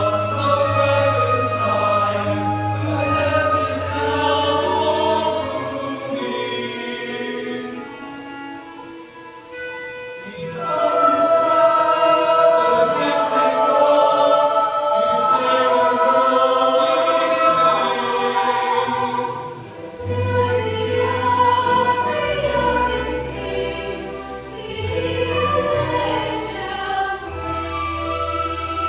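Musical-theatre music: a chorus singing held notes over an orchestral accompaniment, with two brief quieter lulls.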